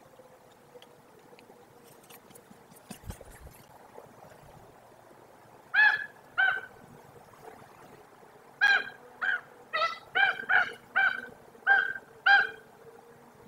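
Common raven calling: two short calls, then after a pause a run of eight more, each about half a second apart.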